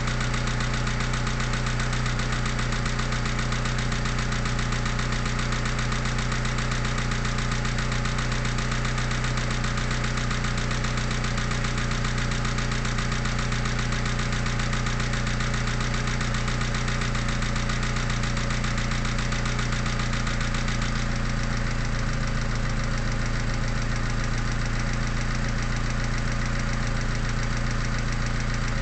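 Mitsubishi 4G63T turbocharged four-cylinder engine idling with a fast, even knock. The owner hears this noise only when the engine is cold and suspects lifters or piston slap. The sound of the idle shifts slightly about two-thirds of the way through.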